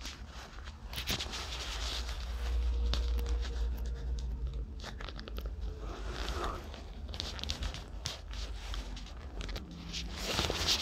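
Scattered clicks, scrapes and crunching of small parts being handled and fitted by hand, over a steady low rumble.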